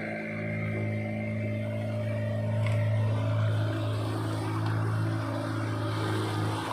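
Boat engine running steadily at constant speed, a low even hum.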